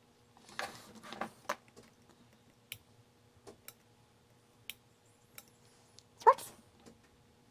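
Light clicks and taps of small hand tools on a workbench during electronics repair work, with a rustle around the first second and a short squeak that rises in pitch just after six seconds, over a faint steady hum.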